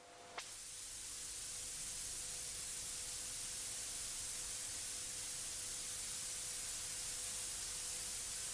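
Steady hiss of static-like noise, fading in over the first second or two, with a single click about half a second in and a faint steady tone underneath.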